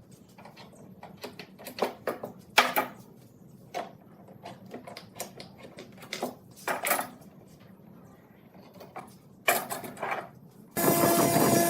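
Scattered light knocks and clicks, irregular and a few at a time, over a quiet background, with a louder noisy sound cutting in about a second before the end.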